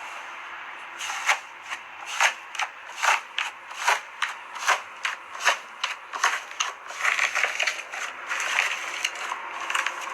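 Slime being squeezed and pressed by hand, giving sharp crackling pops about twice a second, then a denser run of crackling near the end.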